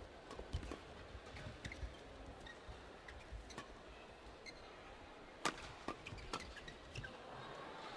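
Badminton rackets striking a shuttlecock in a fast doubles rally: a run of short, sharp smacks, the loudest about five and a half seconds in.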